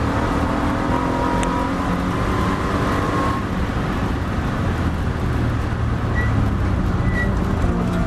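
Triumph TR7 race car engine heard from inside the cabin, pulling hard down a straight with its pitch climbing, then backing off as the car brakes for a corner in the second half. Heavy road and wind noise runs under it.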